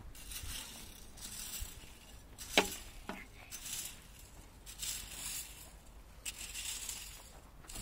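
Long-handled garden tool scraping and digging in dry soil in repeated strokes, with a sharp knock about two and a half seconds in and a softer one half a second later.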